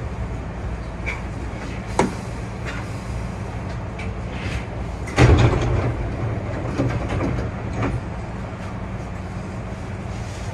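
Hankyu 8000 series electric train running, heard from the driver's cab: a steady low rumble, a sharp click about two seconds in, and a louder rattling clatter about five seconds in, followed by a few lighter knocks.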